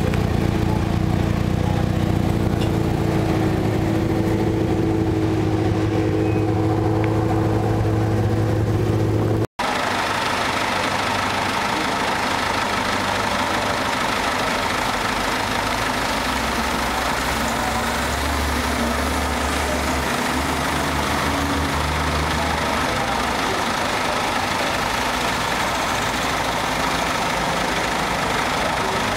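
A classic car's engine idling close by, with a steady low tone. After a sudden cut about nine seconds in, classic cars drive slowly past one after another, engines running under a steady wash of traffic noise.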